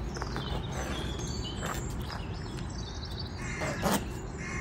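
Birds chirping and calling in the background, with a louder call near the end.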